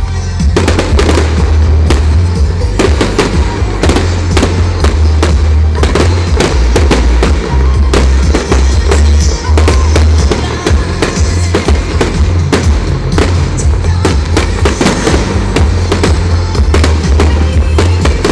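Fireworks display: dense, irregular bangs and crackling from bursting shells and glittering crackle effects, very loud on the microphone, with music playing throughout.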